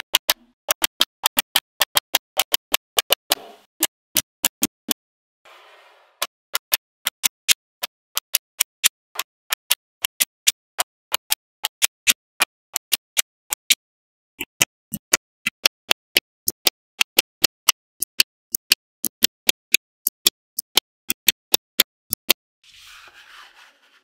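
Small magnetic balls clicking as they snap together one at a time, a steady run of sharp clicks about three a second. There are a few brief soft rattling, sliding sounds, one near the end.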